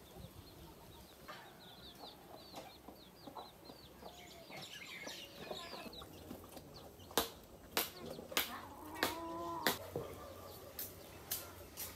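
Village chickens clucking, with small birds chirping in the first half. In the second half comes a string of sharp taps about every half second, and a hen's drawn-out call just before the end.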